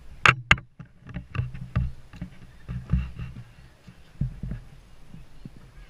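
A run of knocks and thumps over a low rumble, with two sharp, loud knocks close together near the start and softer taps and thumps every half second or so after.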